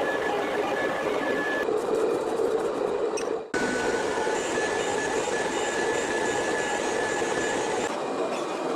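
Steady machine noise with a faint high whine, broken by a brief dropout about three and a half seconds in.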